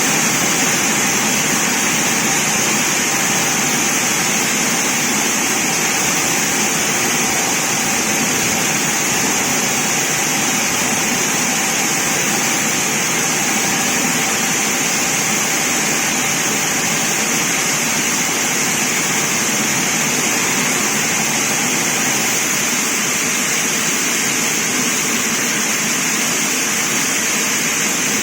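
Steady, unbroken running noise of a vertical band sawmill, a loud even hiss with a high-pitched whine over it.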